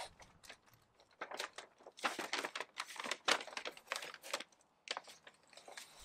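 Paper release backing being peeled and pulled off adhesive vinyl wrap film: a run of irregular crinkling and crackling, busiest from about one to four and a half seconds in.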